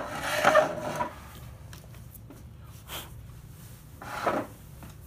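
Creaking and rubbing of wood on wood as a drilled branch piece is worked loose from a wooden bench vise, loudest in the first second. A few light knocks on the workbench follow, then a shorter creak a little after four seconds.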